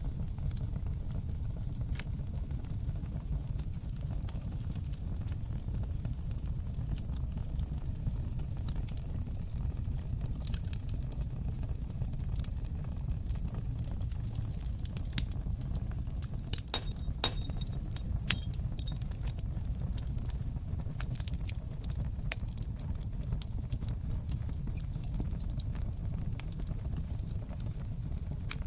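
Wood fire burning in a fireplace: a steady low rumble of flames with scattered crackles and pops, the sharpest pop about two-thirds of the way through.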